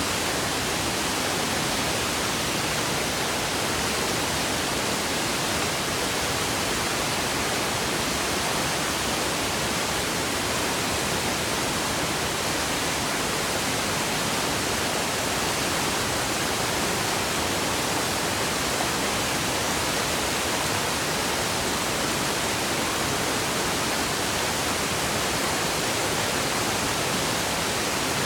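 Waterfall: a steady rush of falling water, an even hiss spread over low and high pitches that holds the same level throughout.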